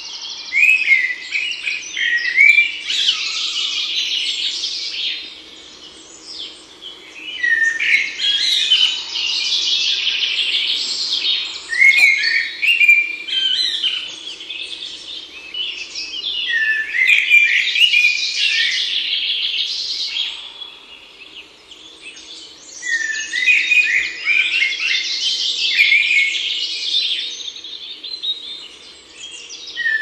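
A songbird singing a series of fast, high song phrases, each a few seconds long, with short pauses between them.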